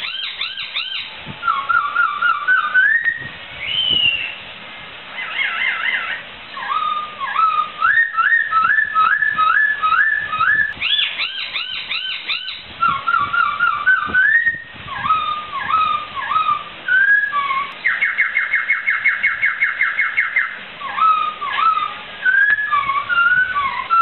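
Poksai (laughingthrush) singing a long, varied run of loud whistled phrases, many of them quick series of repeated rising notes. About eighteen seconds in comes a fast trill lasting a couple of seconds.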